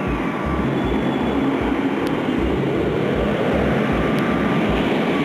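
Boeing 777 twin turbofan jet engines running on the runway: a steady roar with a faint high whine.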